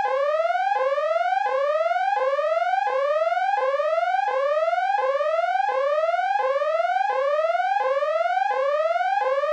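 Electronic emergency-alert siren: a whooping tone that climbs in pitch and snaps back down, repeating about three times every two seconds.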